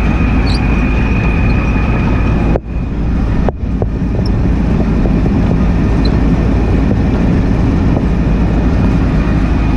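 Combine harvester running with its separator and cleaning fan engaged: a loud, steady machinery drone. A faint steady whine stops about two and a half seconds in, and the sound cuts out briefly twice soon after.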